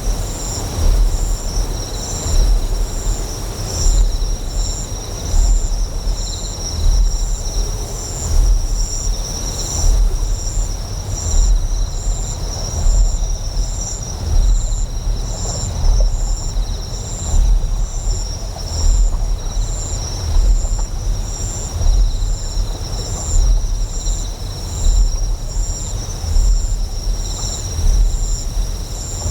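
Deep generator hum that swells in a steady pulse roughly every second and a half. Layered over it are steady high insect chirping, one part pulsing rapidly, and a soft haze of flowing water.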